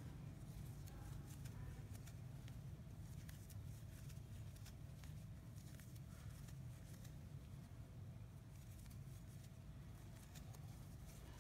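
Near silence: a low steady room hum with faint scattered ticks from a crochet hook and yarn being worked by hand.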